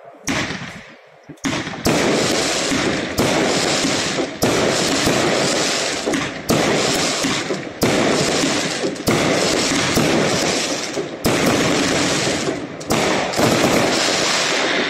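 Aerial fireworks bursting in a rapid barrage: a series of sharp bangs, roughly one a second and sometimes two close together. Each bang trails off in a fading tail.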